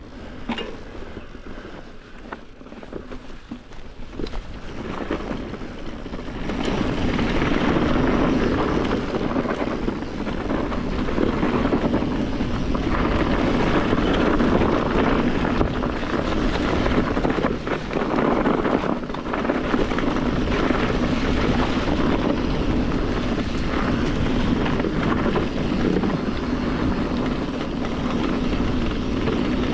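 Wind rushing over the microphone and the knobby Maxxis Forekaster tyres rolling on dirt singletrack as a mountain bike descends, quieter at first and getting much louder about six seconds in as speed builds, then staying steady with occasional knocks from bumps.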